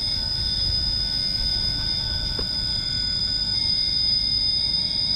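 RC rock crawler's electric motor and drivetrain whining at low speed as it creeps up a rock face: several steady high tones over a low rumble, with a single short click about halfway through.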